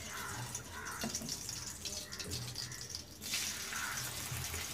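Cooking oil heating in a kadai, sizzling and crackling with a steady hiss that grows louder about three seconds in.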